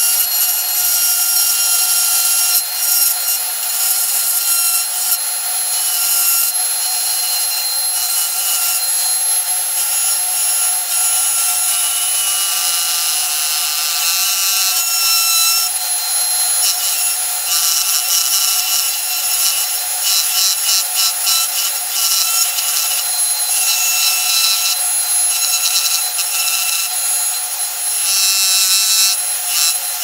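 Dremel rotary tool running at high speed with its bit grinding into aluminum plate: a steady high whine over a rough rasping scrape that flutters as the bit is pressed into the metal.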